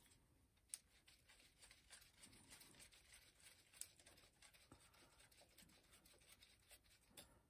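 Near silence with faint scratching and a few light clicks as gloved hands handle and fit the pulley onto a new power steering pump.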